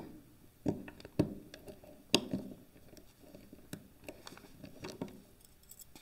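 Small scattered clicks and scrapes of metal padlock parts being worked by hand, as a plug is pushed into the lock body and turned against spring pressure to seat it; the sharpest click comes about two seconds in.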